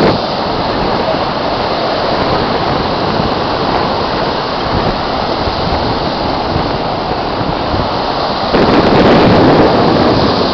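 Ocean surf washing steadily, with wind blowing across the microphone; it swells louder for a second or two near the end.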